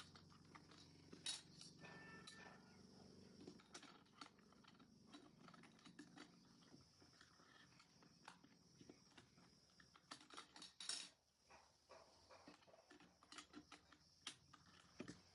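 Faint, irregular clicking of keys being typed on a Logitech K230 compact wireless keyboard, with a brief flurry of louder clicks about ten seconds in.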